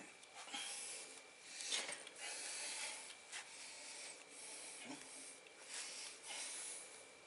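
A man breathing hard and straining in repeated forceful, hissing breaths as he bends a 1/4-20 steel bolt by hand, with rubbing of his grip on the bolt.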